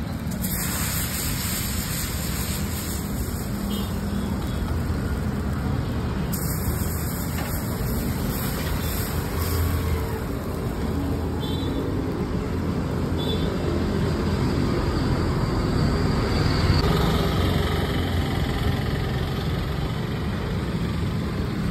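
Chakuli (rice-batter crepes) sizzling on a large hot griddle: a steady hiss over a steady low rumble.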